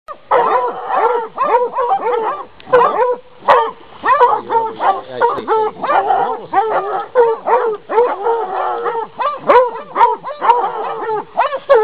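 A small pack of hounds, anglo-beagles and Nivernais, baying a wild boar held at bay: the dogs' bays come several a second and overlap without a break, signalling a boar that is standing its ground.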